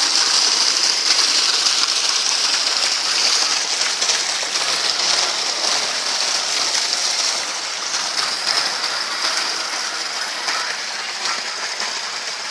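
Water flowing steadily: a continuous rushing, a little quieter in the second half.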